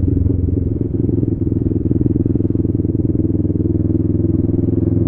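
Motorcycle engine running steadily at low town speed, heard from a helmet-mounted camera.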